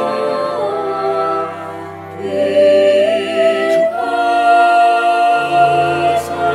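Girls' choir singing a slow song in long held notes, accompanied by viola and cello. The music dips briefly about two seconds in, then swells again, and a low sustained note enters near the end.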